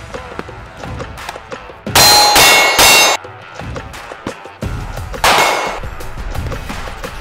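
Bullets striking steel targets, each hit a loud ringing clang: three hits in quick succession about two seconds in, then one more about three seconds later.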